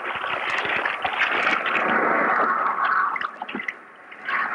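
Wet laundry scrubbed on a washboard in soapy water: a steady splashing rub that eases off about three and a half seconds in and picks up again near the end.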